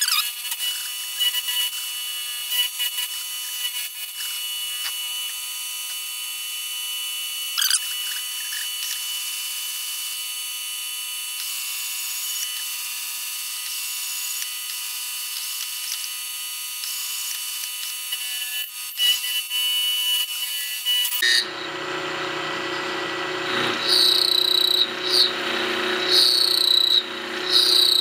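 Milling machine's 3/4-inch high-speed-steel end mill cutting metal, a steady cutting whine with a fixed high tone. About three-quarters through the sound changes abruptly, becoming fuller, with a high chirp repeating roughly once a second.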